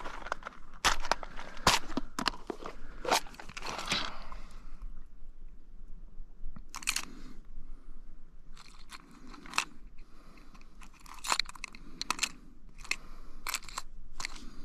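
Irregular close-up clicks, crackles and crunches of hands working with fishing tackle, swapping one lure for another: a cluster of sharp clicks over the first few seconds, a short lull, then more from about the middle on.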